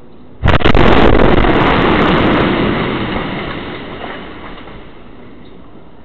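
A two-story house exploding: a sudden, very loud blast about half a second in, with crackles for the first couple of seconds, then a rumble that fades away over the next few seconds.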